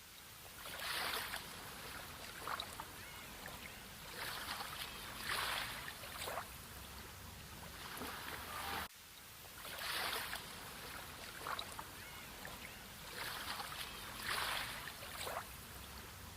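Sea waves washing in, each swell of surf rising and falling about every four to five seconds. There is an abrupt brief drop in level about nine seconds in.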